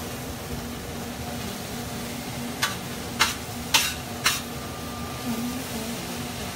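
Vegetables sizzling in a REC TEC Matador's large stainless steel pan, with a metal spatula stirring them and clinking sharply against the pan four times around the middle.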